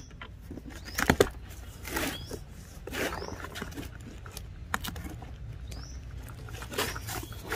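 A knife slitting packing tape along a cardboard box's seam, and the cardboard flaps scraping and rustling as hands pull them apart. Several short scrapes come about a second apart, some with a brief rising squeak; the loudest is about a second in.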